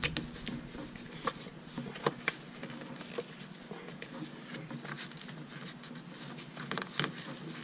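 Handling noise from a notebook and a leather pen holder worked with cotton-gloved hands: scattered soft clicks, taps and faint rustling, with a few sharper ticks about two seconds in and again near the end.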